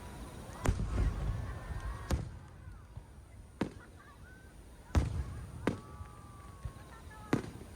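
Aerial fireworks shells bursting: six sharp bangs at irregular intervals of about a second, over a low rumble.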